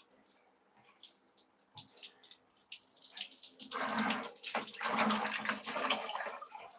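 Water running and splashing as a dirty part is washed, starting about three seconds in after a few faint knocks.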